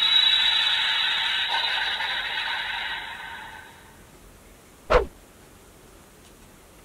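DX Ultra D Flasher toy transformation device playing an electronic sound effect through its small speaker, fading out about three to four seconds in. A single sharp plastic click follows about five seconds in.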